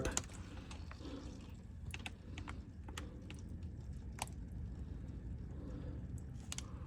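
Faint, irregular light ticks of engine oil dripping from the open drain hole onto a tarp and drain pan, over a low steady background hum.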